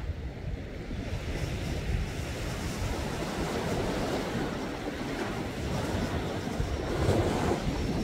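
Sea waves washing in, with wind rumbling on the microphone. The wash swells about halfway through and again near the end.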